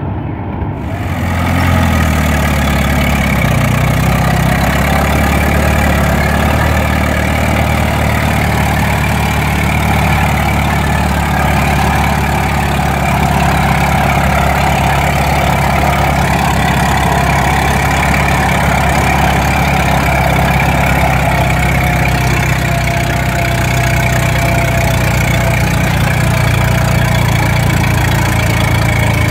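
Antique Case steel-wheeled tractor's engine working under load as it drags a pulling sled. The revs climb over the first few seconds, then it holds a steady, labouring note.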